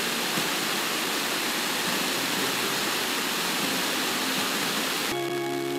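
FM radio hiss: an SDR receiver tuned to a weak station at 91.5 MHz gives loud, even static, because the signal is too weak to quiet the receiver. Near the end the static cuts off as the receiver tunes to a stronger station, and music with steady notes comes in.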